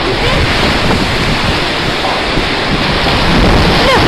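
Typhoon-force wind and heavy rain as a loud, steady rush, with gusts buffeting the microphone.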